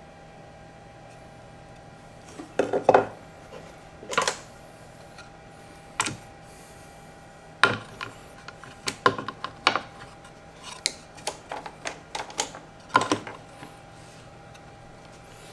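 Walnut and Osage orange workpieces being handled and set down while they are marked with a pencil: about a dozen sharp knocks and clatters of hard wood, starting a couple of seconds in and bunched in the middle.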